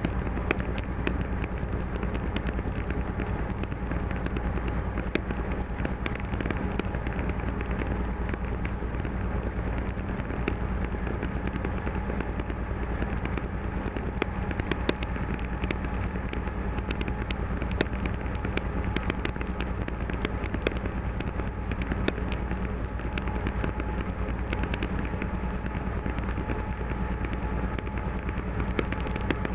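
Class 731 diesel locomotive's engine running steadily, heard from inside the cab while it pushes a heavy freight train as a banker, with many short sharp clicks and crackles over the drone.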